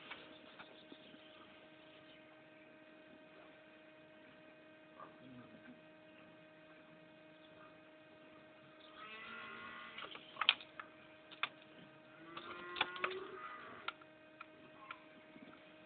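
Faint steady electrical hum, with two short, high animal calls about nine and twelve seconds in and a few sharp clicks.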